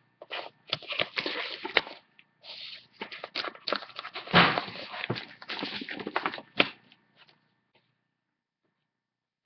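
Rustling and handling noise off-camera, with several sharp knocks, stopping about seven seconds in.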